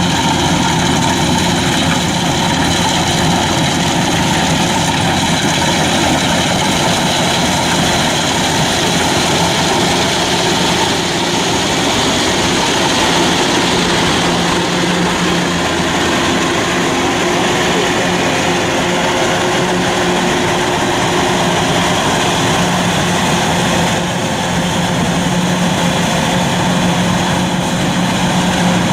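Kubota DC105X combine harvester running steadily while cutting rice, its diesel engine and cutting machinery making a constant drone with a steady low hum.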